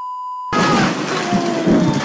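A steady high censor-style bleep for about half a second. Then storm noise of wind and rain with heavier thuds near the end as a big pine tree breaks and crashes down onto a cabin.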